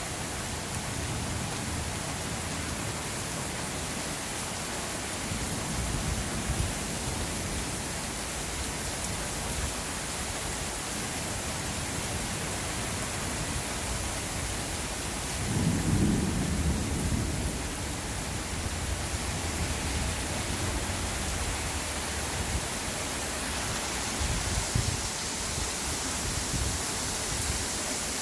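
Steady rain during a thunderstorm, with low rolls of thunder; the loudest rumble comes about halfway through and lasts a couple of seconds.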